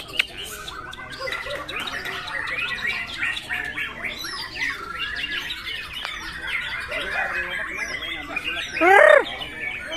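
Murai songbird singing a long, varied run of quick chirps and whistles, with one loud downward-sweeping call about nine seconds in.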